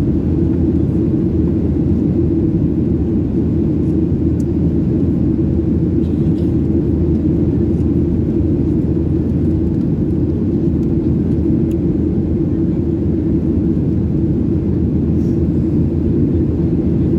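Steady low cabin roar inside a Boeing 737-800 in flight: engine and airflow noise heard through the fuselage, even and unchanging.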